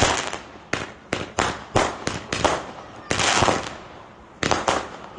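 Roman candles firing: an irregular run of sharp bangs and pops, at times several a second, with a longer crackling burst about three seconds in.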